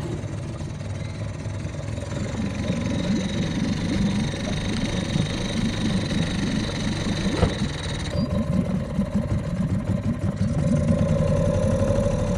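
Small Mercury outboard motor on an inflatable dinghy running steadily as the dinghy gets under way, growing louder about eight seconds in and again near the end.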